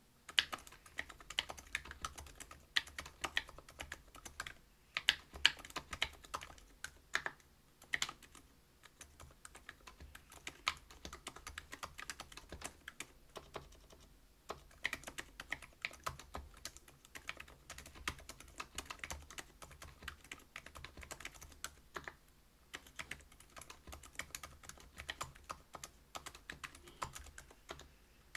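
Typing on a mechanical keyboard with stock Silent Alpaca linear switches (62 g) on a brass plate under PBT keycaps: fast, continuous keystrokes with a few brief pauses.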